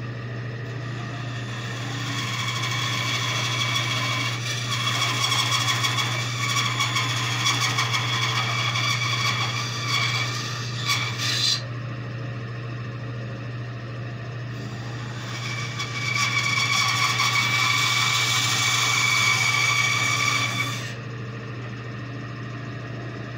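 Bandsaw running with a steady hum while its blade cuts through a wooden blank in two passes, the first from about 2 to 11 seconds in and the second from about 15 to 21 seconds in.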